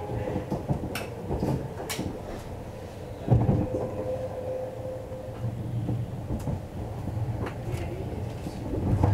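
Passenger train heard from inside the carriage while running: a steady rumble of wheels on track with scattered clicks and knocks, a sharper thump about three seconds in, and a faint steady whine for about two seconds after it.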